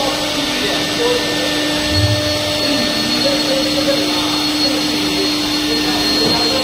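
Fiber cement board grooving and slot milling machine line running: a steady, loud machine noise with a low hum, joined about two seconds in by a thin high whine.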